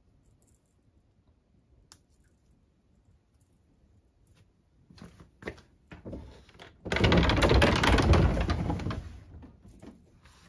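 A few light clicks, then a wooden sliding door rattling open for about two seconds, starting about seven seconds in. This is the loudest sound.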